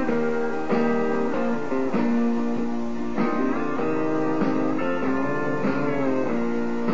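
Guitar-led instrumental intro of a country song, with plucked and strummed guitar notes, some of them bent up and down in pitch.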